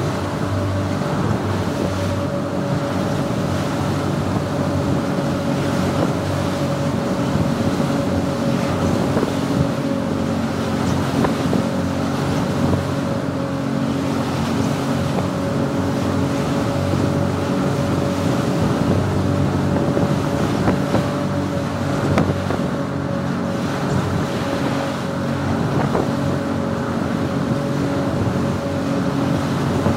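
Motorboat running at a steady cruising speed: a steady engine drone over the rush of water along the hull and wind buffeting the microphone.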